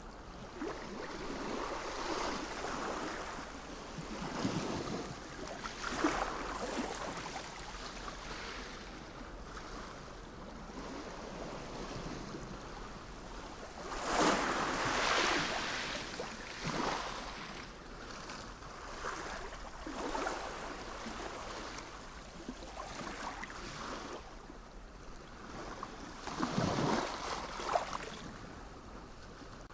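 Sea waves washing in and out, in slow swells, with the biggest surges about halfway through and again near the end.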